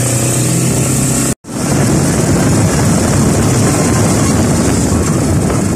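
Moving vehicle heard from inside: a steady engine drone for the first second or so, a brief cut-out, then loud rushing wind and road noise.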